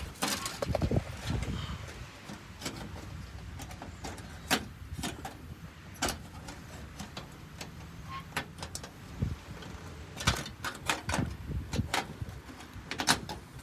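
Scattered clicks, knocks and rattles of a television's plastic and metal parts being handled and pried apart, over a low steady hum.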